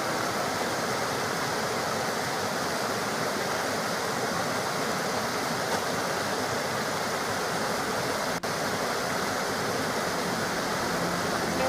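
Steady rushing of flowing water from a waterfall or stream, with no music, and a split-second dropout about eight seconds in.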